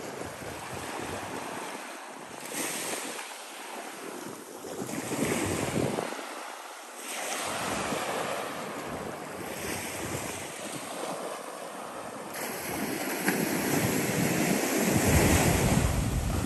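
Small surf breaking and washing up onto a sandy shore, the wash rising and falling every few seconds. Wind buffets the microphone, loudest near the end.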